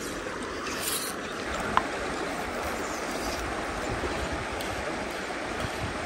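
Steady rush of a small creek's running water, with a single sharp tick a little under two seconds in.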